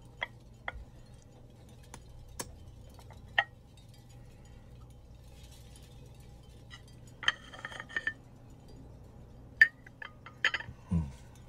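China teacup and metal pocket watch being handled on a ceramic plate: scattered sharp clinks and taps, a quick cluster of them about seven seconds in and the loudest single clink near the end.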